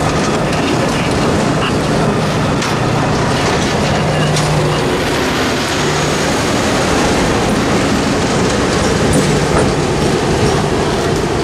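Passenger coaches rolling past at close range: a steady rumble of steel wheels on rail, with scattered clicks as the wheels cross rail joints. A diesel locomotive's engine comes by near the end.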